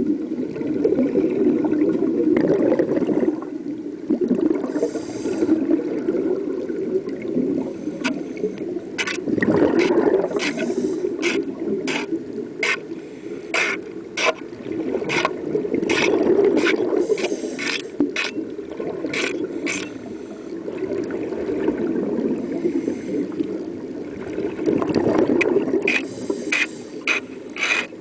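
Underwater, a hand scraper chips and scrapes marine growth off a propeller blade: a long irregular run of sharp clicks and scrapes, thickest from about a third of the way in. Beneath them is a steady rushing water noise that swells now and then.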